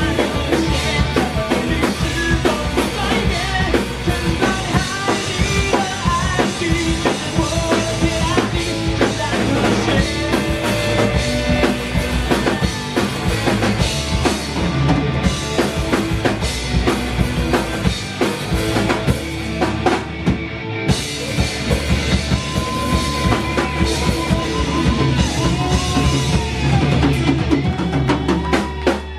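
Live rock band playing loudly: full drum kit with bass drum, plus bass and guitars in a dense, steady rock groove.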